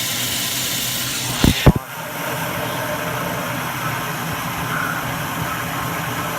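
Water rushing steadily into a Kohler Kingston toilet bowl from a garden-hose supply during a flush, with two sharp knocks about a second and a half in, after which the rushing sounds more muffled.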